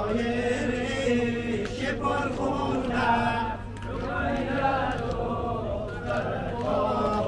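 Men's voices chanting a Persian-language noha, a Shia mourning lament for Muharram, in long held sung lines.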